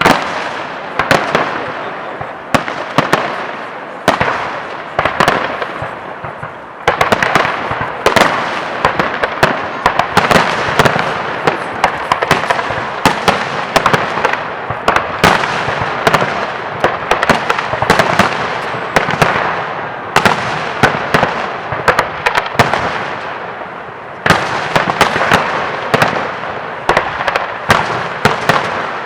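Fireworks display: rapid, irregular bangs of shells bursting over a continuous dense crackle, with fresh surges of bursts about seven seconds in and again near the end.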